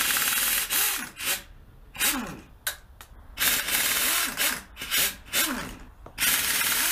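Pneumatic impact wrench spinning nuts off the cylinder-head studs of a V8, fired in repeated short bursts of a second or less with brief pauses between.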